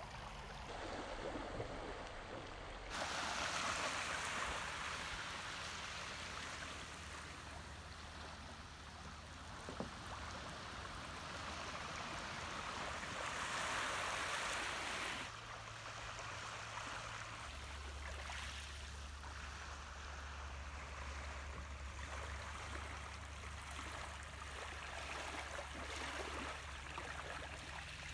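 Small waves lapping on a gravel shore of calm bay water: a soft, steady wash that grows louder a few seconds in and drops back about halfway through, when a low steady hum comes in underneath.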